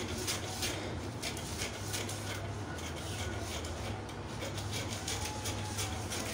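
Paper pattern pieces rustling and sliding on a tabletop as they are handled, in short irregular scrapes, over a steady low hum.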